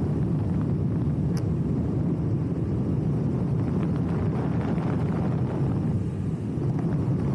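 Wind rushing over a camera microphone carried by a paraglider in flight: a steady low rumble of airflow.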